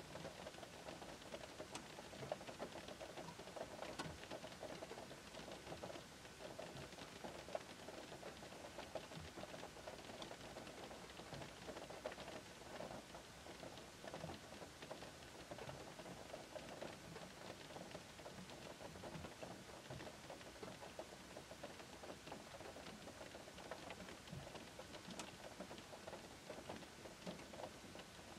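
Gentle rain pattering on a Škoda car's roof and windows, heard from inside the cabin: a soft, even hiss of rain with many scattered single drop ticks.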